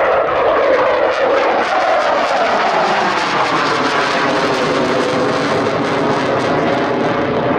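Fighter jet flying past with a loud jet-engine roar, its tone sliding down in pitch over the first few seconds and then holding steady.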